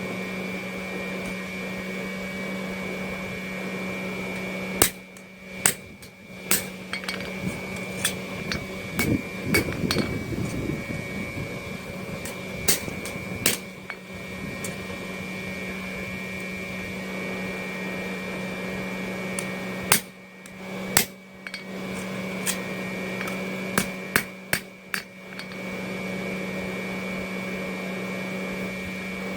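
Blacksmith's hammer striking hot mild steel flat bar on the anvil in short, scattered groups of ringing blows, blending a forged neck into a curve and rounding the end over. The blows come about 5 seconds in, again around 9 and 13 seconds, and in a last cluster from about 20 to 25 seconds in, over a steady motor hum.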